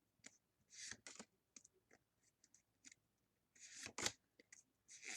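Faint handling noises of Pokémon trading cards and their packaging: soft, short swishes and light clicks, with a cluster about a second in and another near the four-second mark.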